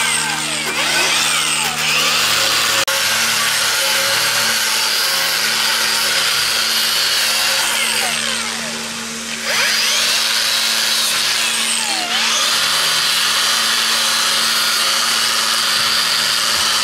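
A power tool runs continuously under load with a steady hum and sweeping, grinding-like noise. Its sound drops off for about a second and a half partway through, then comes back at full level.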